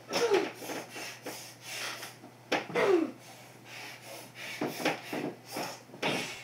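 A boy's grunts and heavy breathing as he wrestles a large plush teddy bear on a bed, with rustling and soft thumps of fabric and mattress. The loudest grunts, falling in pitch, come just after the start and about three seconds in.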